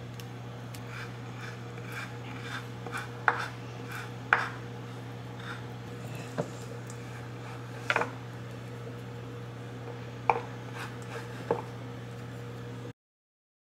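Kitchen food-prep sounds: scattered light taps, clicks and knocks from handling herbs and a stainless steel mixing bowl, over a steady low hum. The sound cuts off suddenly near the end.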